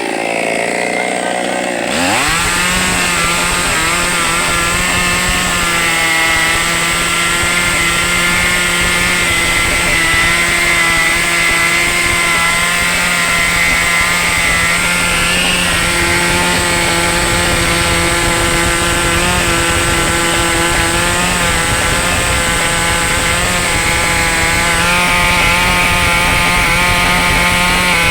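Two-stroke chainsaw engine revved up from a lower speed about two seconds in, then held at high, steady revs.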